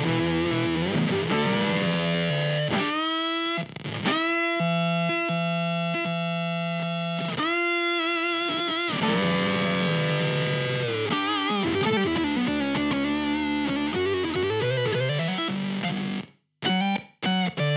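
Electric guitar played through the IK Multimedia X-Drive pedal's Octofuzz preset, a distorted octave fuzz. It plays sustained notes with slides and bends and a long held chord in the middle. The sound cuts out abruptly twice near the end.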